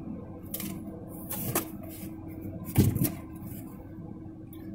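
Cardboard box and packing paper being rustled and handled as a ceramic mug is lifted out, with a louder knock about three seconds in, over a steady low hum.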